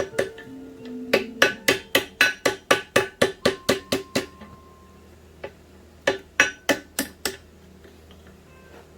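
Hand hammer forging steel on an anvil: a run of ringing blows at about four a second, a pause of under two seconds, then a shorter run of about six blows.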